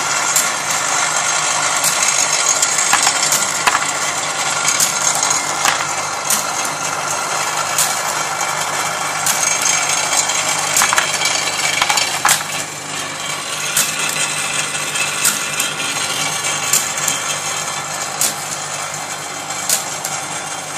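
Lionel toy train log loader accessory running: a steady electric motor hum under a continuous rattle, with irregular sharp clicks from the mechanism.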